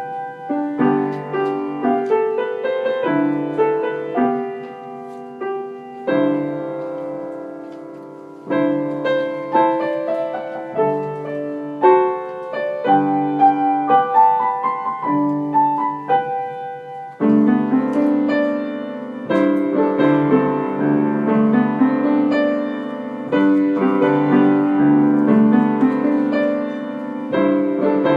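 Piano music: a run of melodic notes and chords, with short breaks around six, eight and seventeen seconds in, fuller and busier from about seventeen seconds on.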